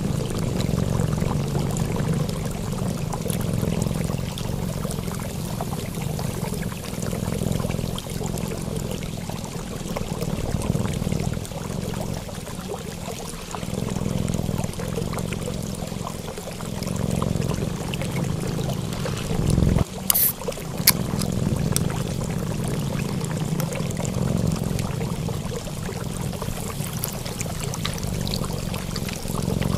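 Steady flowing water that swells and eases every few seconds, with one short, sharp sound about twenty seconds in.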